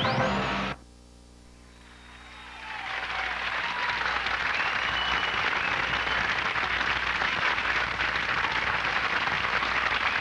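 A theme tune ends with a rising sweep less than a second in. After a brief lull, applause builds up and then goes on steadily.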